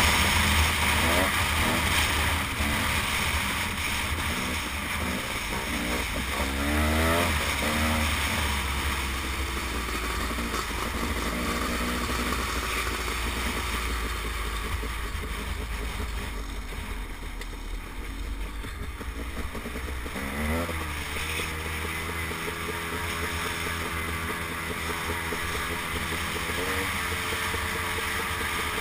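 Two-stroke dirt bike engine heard up close while riding, revving up and down through the gears in the first several seconds, then holding a steady pitch after a rise in revs about twenty seconds in. Wind rumbles on the microphone.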